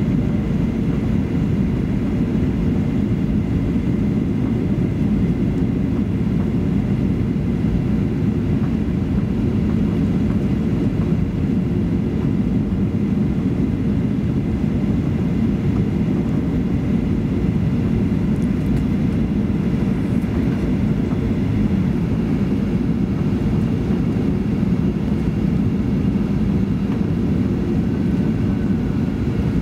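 Steady cabin noise inside a Boeing 737-800 on final approach with flaps down: a constant low rumble of the engines and rushing airflow, with a faint thin whine above it.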